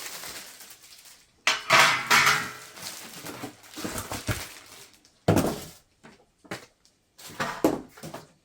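Metal parts of a portable propane griddle being handled and set down: a series of sharp clanks and clatters, the loudest about a second and a half in and again just past five seconds.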